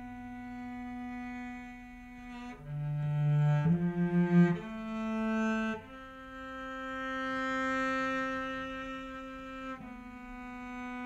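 Solo cello playing long sustained bowed notes, with a short passage of lower, shorter notes about three seconds in, including a quick pulsing figure, then a long held note that swells and fades.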